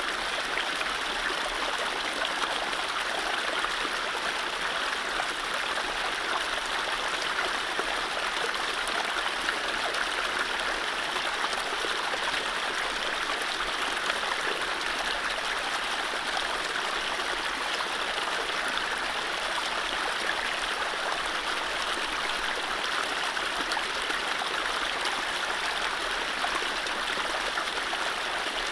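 Mountain stream running over low rapids: a steady, even rush of water with no birdsong.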